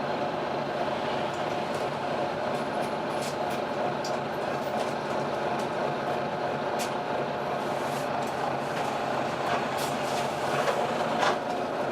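Volvo B9TL double-decker bus running, heard from on board: the engine and the hoover-like whine of its cooling fan make a steady drone with several held tones. Short rattles and clicks sound throughout, with a few sharper ones near the end.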